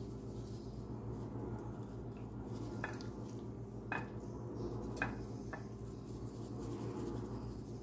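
Hands rubbing seasoning into raw cod fillets in a glass baking dish: soft handling noise with four light clicks, over a steady low hum.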